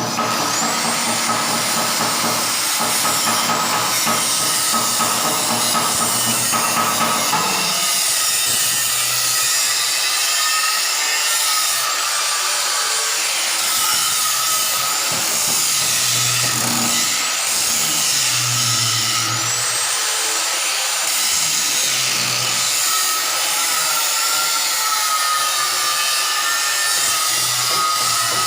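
Loud, continuous machinery noise with a steady whine and occasional rising and falling high-pitched whines, like power tools or a machine running under changing load.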